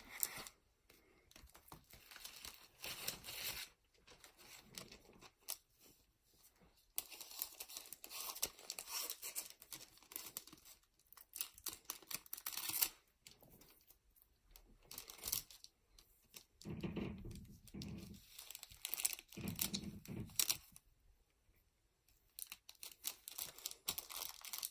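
Foil booster pack and plastic hanger sleeve crinkling and rustling in short, quiet bursts as the pack is slid into the sleeve and pressed flat.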